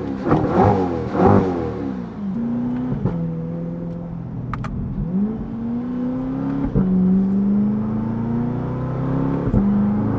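Corvette C8 E-Ray's 6.2-litre V8 through a Valvetronic Designs titanium exhaust with the valves open, heard from inside the cabin. Three quick revs rise and fall in the first second and a half, then the engine accelerates through the gears, its pitch climbing and dropping at upshifts about three, six and a half and nine and a half seconds in, each shift marked by a short crack.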